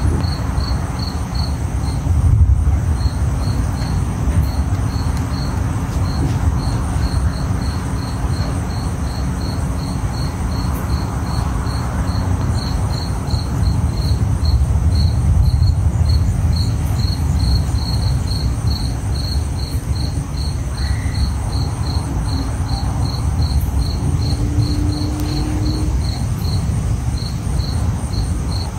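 An insect chirping in a steady rhythm, about three short high chirps a second, over a continuous low rumble that swells about two seconds in and again midway.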